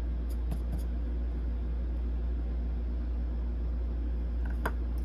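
Steady low background hum with a faint hiss, broken by a few faint light ticks early on and one shortly before the end.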